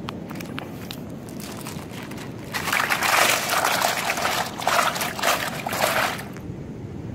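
Plastic sack rustling and crinkling as it is handled with freshly caught tilapia inside. The rustling is loud for about four seconds, starting a couple of seconds in, after a few light clicks.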